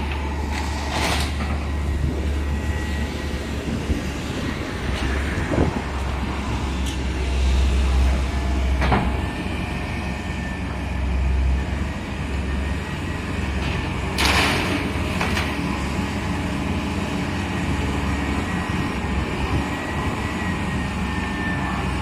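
Excavator's diesel engine running steadily as it tears down a building, with a handful of sharp crashes and clanks of breaking debris, the loudest about two-thirds of the way through.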